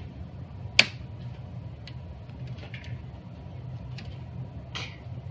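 Hands working a household breaker panel: one sharp click a little under a second in, then a few faint ticks over a steady low hum.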